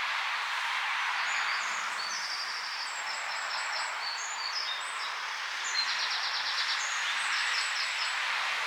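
Small birds singing, a string of high chirps and short trills including one fast run of repeated notes, over a steady hiss of outdoor background noise.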